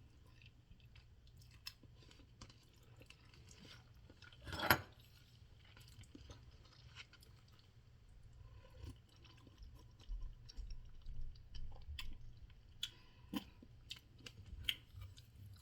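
A person quietly chewing a mouthful of instant cup noodles, with soft wet mouth clicks throughout and one short louder noise about four and a half seconds in; the clicking grows busier in the last few seconds.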